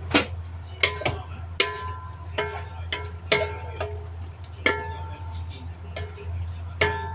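A metal utensil knocking and clanking against a cooking pan, about a dozen irregular strikes, each leaving a short metallic ring, over a steady low hum.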